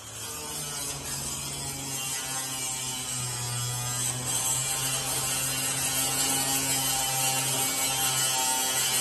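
Vertical ring-die pellet mill running on rice husk: a steady motor hum under a dense, rattling mechanical grinding noise, getting somewhat louder about four seconds in.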